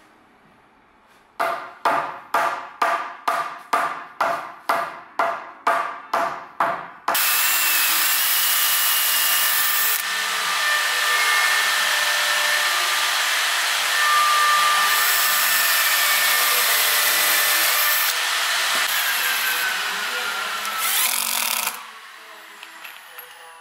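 About a dozen sharp knocks, roughly two a second, then a power drill running for about fifteen seconds, its bit boring a hole into pine at the bottom of a bow-tie-shaped pocket; the drill stops near the end.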